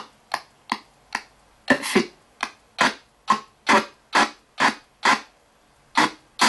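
Spirit box (ghost box) radio sweeping through stations: short snippets of radio sound and static, about two a second, each cut off sharply with near silence between.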